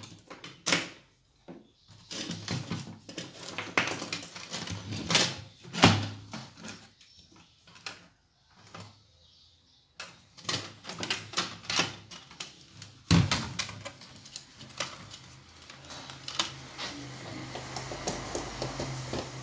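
Plastic cabinet and speaker housing of a Philco micro system being handled on a workbench: irregular clicks, knocks and rattles of hard plastic and parts. A low steady hum sets in about two-thirds of the way through.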